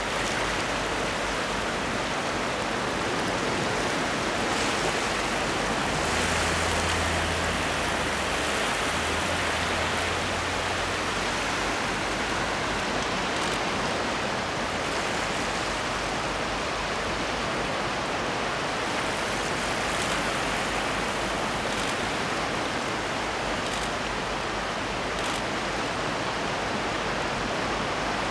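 Steady rush of sea waves washing and breaking over a rocky shore.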